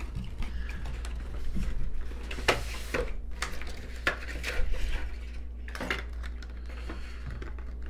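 Hard plastic camera parts and packaging being handled: scattered clicks, knocks and light rattles as the instant back is unpacked.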